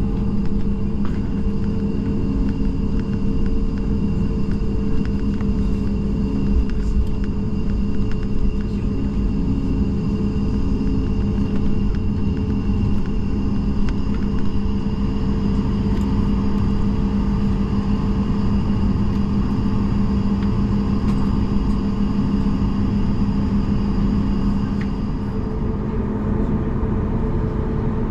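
Boeing 737 MAX 8's CFM LEAP-1B jet engines running at low power while the airliner taxis, heard inside the cabin: a steady rumble with a low hum and faint higher whines.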